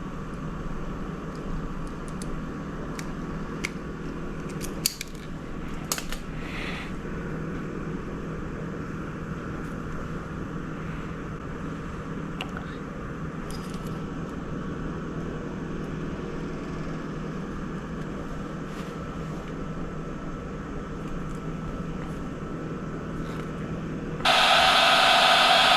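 Steady low hum, with a few sharp snips of wire cutters cutting steering-wheel horn wires a few seconds in. Near the end a loud, steady blowing noise starts.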